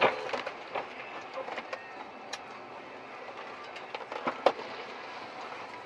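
A sharp knock right at the start, followed by scattered smaller clicks and knocks over a steady background noise, with a second sharp knock about four and a half seconds in.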